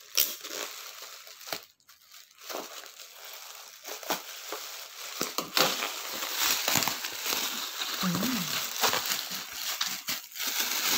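Black bubble-wrap packaging being pulled open and crumpled by hand: a dense crinkling and crackling, getting louder about four seconds in.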